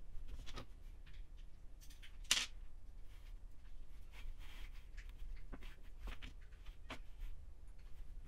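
Scattered light clicks and rustles of hands handling the wiring and plastic connectors on a 1/10 scale RC crawler chassis, with one sharper click a little over two seconds in.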